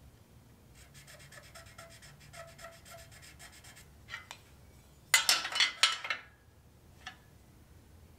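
Marking tool scratching layout lines on a steel tube against a square: light, quick scratching strokes, then a louder scrape lasting about a second about five seconds in, and a single click near the end.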